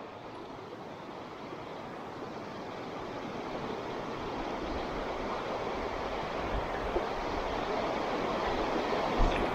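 Fast, shallow river current rushing steadily, growing slowly louder, with a light bump near the end.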